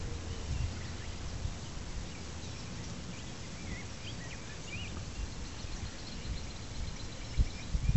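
Outdoor ambience: a steady low rumble with a few bird chirps about three to four seconds in and a rapid run of faint high ticks near the end. No train horn sounds.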